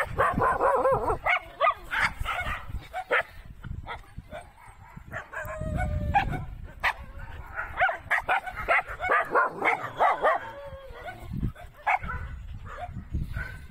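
A dog whimpering and yipping over and over, in short high whines that bend up and down in pitch.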